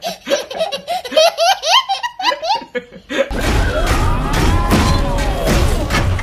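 A young child's hearty belly laugh in quick repeated bursts for about three seconds, then a loud, steady rumbling noise with a tone that rises and falls.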